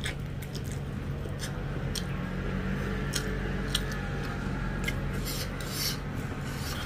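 Fingers mixing rice and egg curry on a stainless steel plate: scattered small clicks and scrapes, over a steady low hum.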